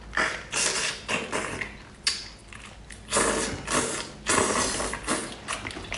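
Mantis shrimp being eaten close to the microphone: its shell cracking and crunching in irregular bursts, with chewing.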